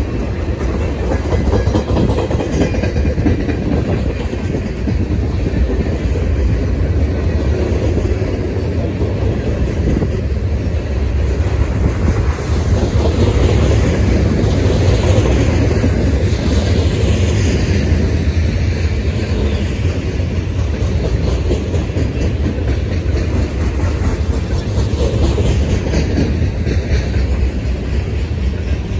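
Freight train cars (tank cars, then centerbeam flatcars loaded with lumber) rolling past, steel wheels clicking over the rail joints over a steady rumble.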